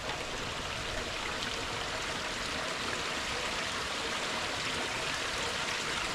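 Steady, even rushing noise of the kind running water makes, with no separate sounds standing out and no change in level.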